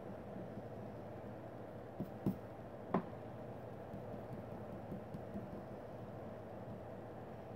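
A few light knocks and taps on the drawing desk while the eraser is handled, the loudest a sharp click about three seconds in, followed by a few fainter ticks. A steady low hum runs underneath.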